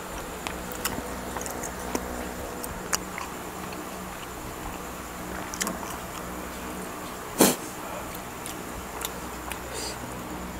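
Close-up eating sounds: scattered small clicks and wet smacks of a garlic-fried prawn being pulled apart, dipped and eaten by hand, with one louder snap about seven seconds in, over a steady low hum.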